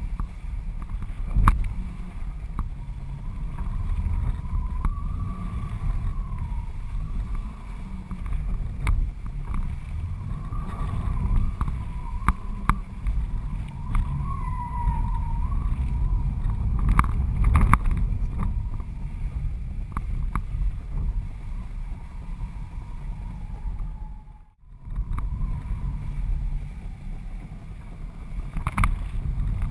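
Wind buffeting a GoPro mounted on the strut of a flying kitesurfing kite: a steady low rumble with a faint wavering whistle and a few sharp snaps.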